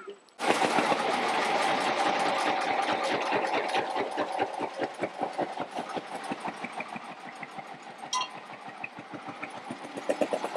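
A small river boat's engine running with a rapid, even knocking beat. It comes in suddenly about half a second in and eases a little in the second half as the boat pulls away from the bank.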